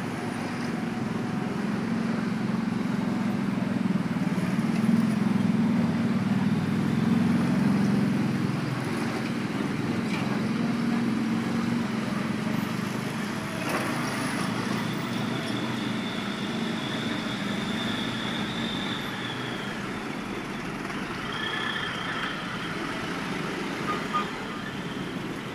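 Road traffic moving over a reopened level crossing: motorbike engines and cars passing close by, loudest in the first half, with a bus passing near the end.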